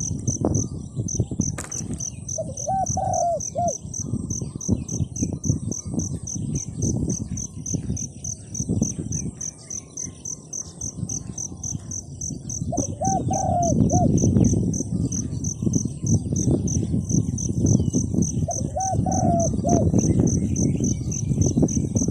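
A dove cooing, a short phrase of a few notes repeated four times, every five or six seconds. A steady pulsing high trill runs under it, likely an insect, along with loud, rough low-pitched noise.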